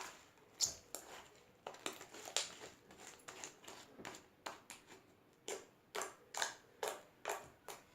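Goam-and-fluffy slime worked by hand, giving a series of short pops and clicks, about two a second.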